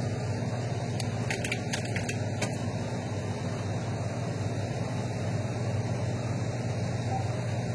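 Sony TC-WR465 cassette deck's B-side transport fast-winding a tape: a steady whirring hiss over a low hum. A few sharp clicks, the transport buttons being pressed, come about one to two and a half seconds in.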